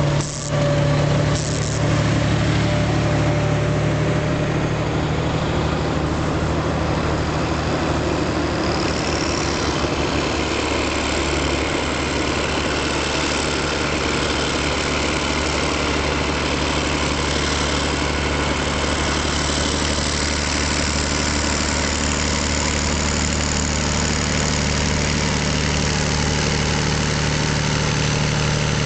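Diesel engine of a Rába Steiger articulated tractor running steadily as it drives over a silage clamp, packing down chopped maize. Its note dips briefly about ten seconds in, and a short rising whine comes just before.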